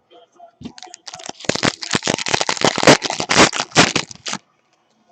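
A pack of trading cards being handled: a dense run of crinkling and rustling for about three seconds, starting about a second in and stopping abruptly.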